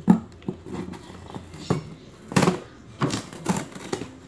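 Cardboard shipping box being slit and pried open with a cutter: a string of sharp scrapes and cracks of blade and cardboard, about half a dozen, the loudest about two and a half seconds in.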